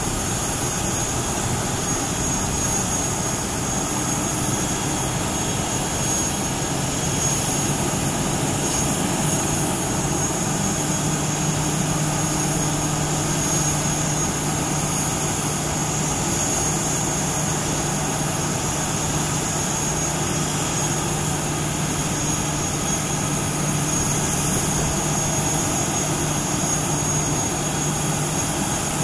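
Jet airliner running steadily on the apron, a continuous rushing noise with a high turbine whine over it and no sudden changes.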